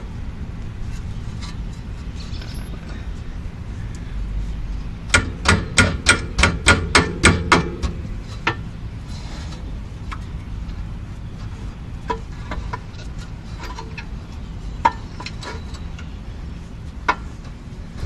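Hammer striking metal as the rear brake pads' retaining pin is driven back into the caliper: a quick run of about nine sharp taps, roughly four a second, about five seconds in. A single knock and a few light metal clicks follow, over a steady low hum.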